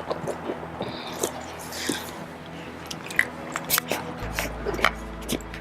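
Irregular crunching clicks of a puppy chewing a food reward, over faint steady background music.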